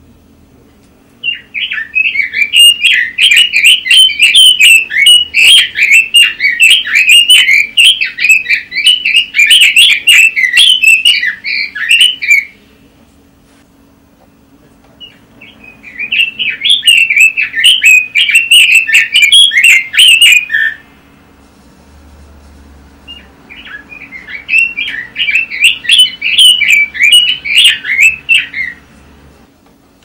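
Red-billed leiothrix (Pekin robin) singing continuously in three bouts of fast, warbling, chattering notes. The first bout lasts about eleven seconds and the other two are shorter, with brief pauses between them. A faint steady low hum sits underneath.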